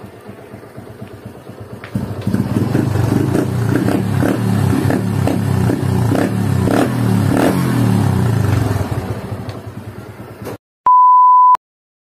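Honda Wave underbone motorcycle's single-cylinder four-stroke engine running through an Apido aftermarket exhaust. It idles, then is revved repeatedly from about two seconds in and settles again. The sound cuts off near the end and a short, steady electronic beep follows.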